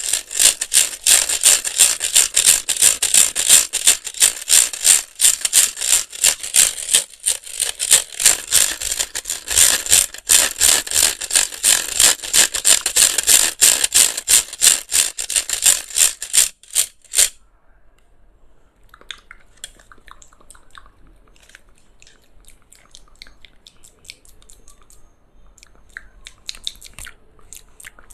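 Handheld electric fan used as an ASMR trigger: fast, dense rattling clicks that cut off abruptly about two-thirds of the way through. Faint, scattered crackling and ticking follows.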